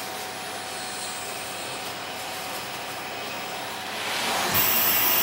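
Vacuum cleaner running steadily, sucking the air out of a plastic bin bag through its hose. About four seconds in it turns louder and hissier as the bag is drawn tight.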